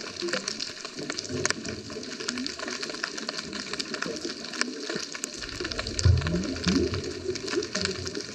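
Underwater sound on a scuba dive: a steady crackle of sharp clicks, with low bubbling gurgles that grow louder about six seconds in.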